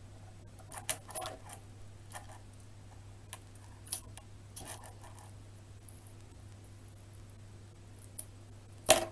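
Small clicks and scrapes of a thin nitinol wire and metal alligator clips being handled on a wooden table, scattered through the first five seconds, with a sharper, louder click near the end.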